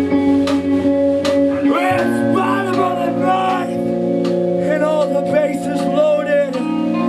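Live band playing: held guitar chords with evenly spaced drum hits keeping time, then a voice starts singing about two seconds in.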